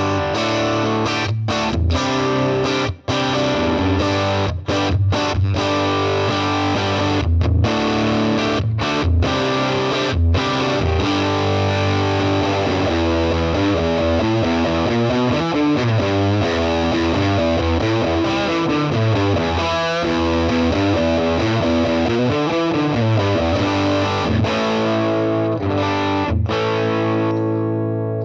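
Distorted electric guitar played through the FM9's Nuclear Tone amp model and a 1x12 Nuclear Tone DynaCab, with the ribbon and Dynamic 2 mics blended. It plays chords, then a faster run of single notes, and ends on a held chord ringing out.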